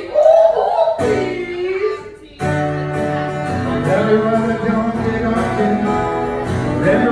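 Live song with acoustic guitar: a voice sings over the guitar for about two seconds, then breaks off, and after a short lull the acoustic guitar comes back in, playing chords.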